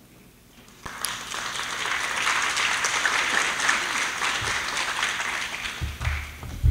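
Audience applauding, starting about a second in, holding steady, then dying away near the end, where a low thump, the loudest sound, is heard.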